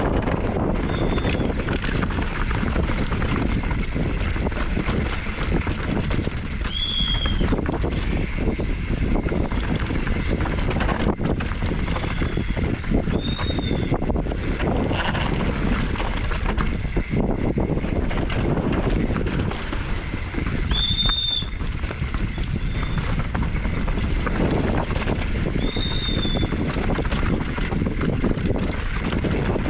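Downhill mountain bike running fast over a dirt and rock track: wind buffeting the camera microphone, tyres rolling on dirt and the bike rattling. Several brief high squeals come at irregular moments.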